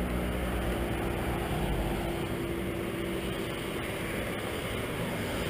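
Peak-hour road traffic at an intersection: cars driving past with a steady mix of engine and tyre noise, one engine's hum holding steady for about three seconds before fading into the general traffic.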